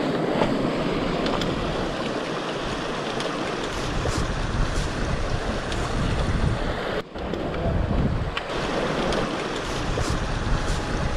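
Shallow mountain stream running over rocks, with wind buffeting the microphone and occasional sharp clicks; the sound drops out briefly about seven seconds in.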